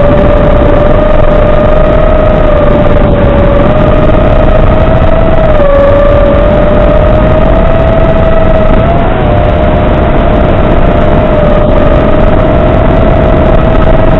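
FPV quadcopter's motors and propellers giving a steady whine at cruise throttle, its pitch wavering slightly as the throttle shifts, over heavy hiss.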